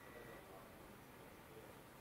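Near silence: faint room tone, with a faint steady high tone that stops about half a second in.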